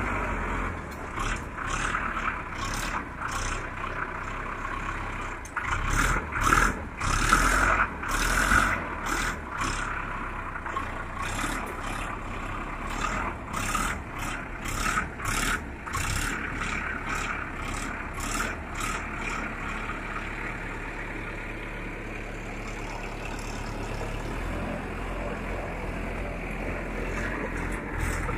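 Vehicle engine running steadily at low speed on a rough, rocky dirt road, with frequent rattles and knocks from the vehicle jolting over stones. The knocks are busiest in the first two-thirds and then thin out to a steadier drone.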